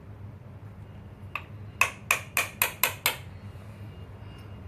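A light tap, then six quick sharp strikes in a little over a second: the tactical pen's fire starter being struck hard to throw sparks.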